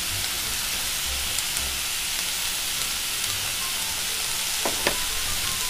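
Thick cubes of hanwoo beef sizzling steadily on an electric grill pan, a constant frying hiss, with a faint light click near the end.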